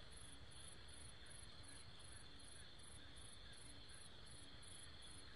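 Insects chirping: a very high, even pulse about two to three times a second, over a faint steady high drone.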